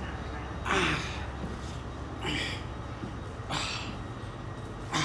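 A man breathing hard, with four heavy, gasping breaths about every second and a half, out of breath from climbing a long flight of stairs.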